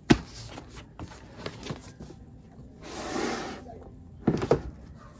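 Cardboard iPad box packaging being handled: a sharp tap just after the start, a few light taps, a soft sliding rub about three seconds in, and a quick cluster of knocks a little after four seconds.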